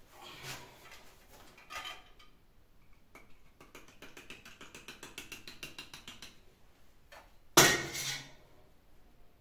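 Kitchenware being handled: scattered knocks and a run of small rattling clicks, with one loud clank that rings briefly about seven and a half seconds in.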